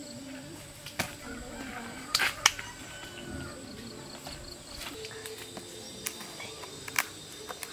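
A few sharp knocks and rustles as green coconuts are set into a woven basket and palm fronds are pulled and handled.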